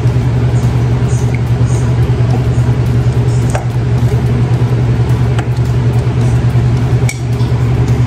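Steady low machine hum with a few faint light clinks of a pastry brush against a ceramic bowl while egg wash is brushed onto dough.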